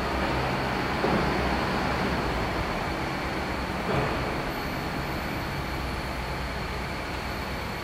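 Steady mechanical drone with a low hum and a faint high whine, and two brief knocks, about a second in and about four seconds in.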